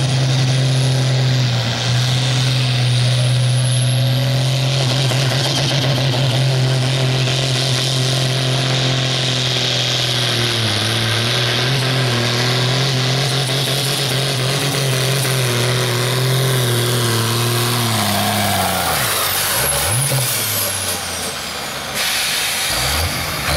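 Diesel engine of a pulling tractor running flat out under heavy load as it drags a weight sled, a steady drone for most of the pull. About eighteen seconds in, the engine note drops and falls away as the pull ends.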